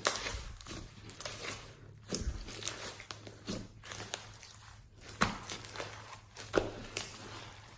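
Slime being squeezed and worked by hand, giving irregular crackles and wet pops, with a couple of sharper snaps after about five seconds.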